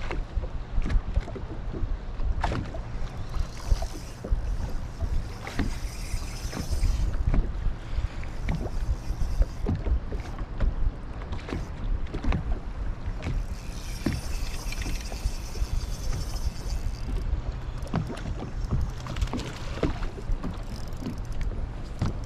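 Wind buffeting the microphone on a small boat as a steady low rumble, with scattered knocks and clicks throughout. Two spells of higher-pitched hiss last a few seconds each, starting about three seconds in and again about fourteen seconds in.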